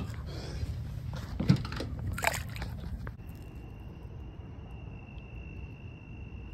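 Handling sounds from a freshly caught fish being held and laid down: a few knocks and rustles in the first three seconds, the sharpest about one and a half seconds in. From about three seconds in, a faint steady high-pitched whine runs over a low rumble.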